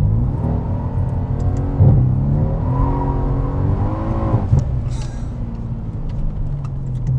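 Mercedes-AMG C63 estate's 4.0-litre twin-turbo V8, heard from inside the cabin, accelerating with its exhaust valves held open. The engine note rises, breaks at an upshift about two seconds in, and rises again. After about four seconds it drops off as the throttle is lifted.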